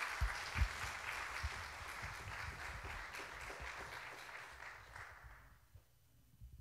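Congregation applauding, the clapping fading out about five seconds in, with a few dull thumps now and then.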